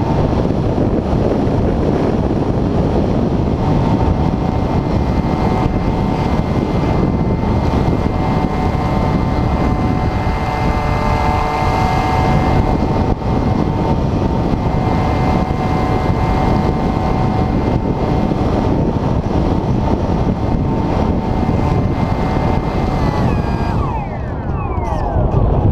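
Wind buffeting the onboard camera microphone of an Airfield Extreme Surfer 2400mm RC glider in flight, with the steady whine of its electric motor underneath. Near the end the whine steps down and glides lower as the motor is throttled back.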